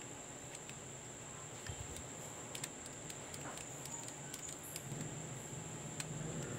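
Faint scattered clicks and taps of a clear plastic action-camera housing being handled and turned in the hand, over a steady faint hiss with a thin high whine.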